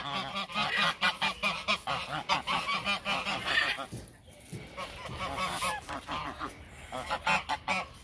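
Cotton Patch goose calling in a quick string of short honks for about four seconds. The calls then fall quieter, and another quick run of calls comes near the end.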